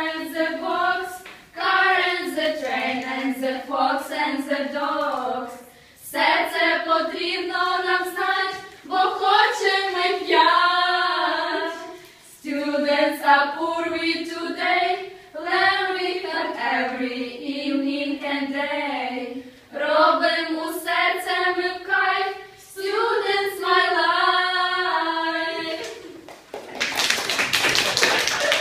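Four women singing a song together unaccompanied, in phrases a few seconds long with short breaks between them. Near the end the singing stops and applause begins.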